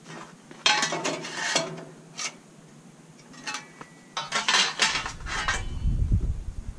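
Loose steel pieces being handled, clinking and scraping against each other in several short bunches of clatter, with a low rumble coming in about five seconds in.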